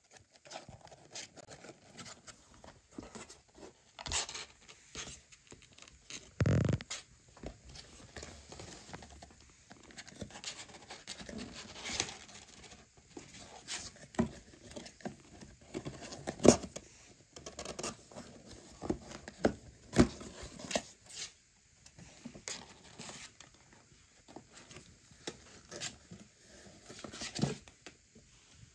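A kitten scrambling in and around a cardboard box, its claws scratching and tapping on the cardboard in irregular clicks and rustles. There is a dull thump about six seconds in.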